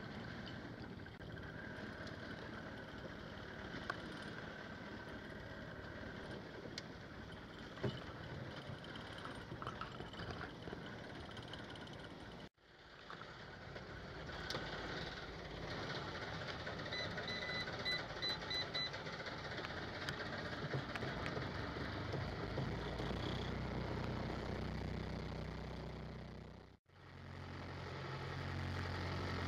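Boat engine running steadily with a low hum, strongest near the end. Partway through there is a quick string of short electronic beeps, and the sound cuts out abruptly twice.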